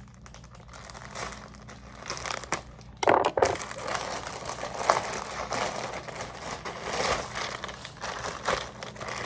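Plastic packaging crinkling and rustling as items are handled and pulled out of a mailed package, with a louder burst of crinkling about three seconds in.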